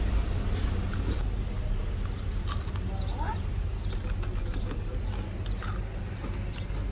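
Outdoor street ambience: a steady low rumble with scattered small clicks and faint short sounds over it.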